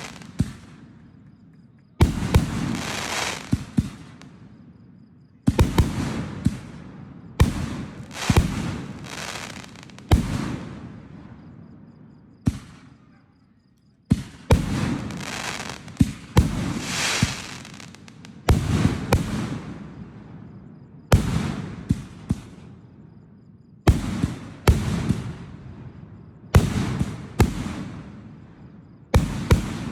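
Aerial fireworks bursting in a steady series: sharp bangs every second or two, often in quick pairs or clusters, each followed by a fading noisy tail.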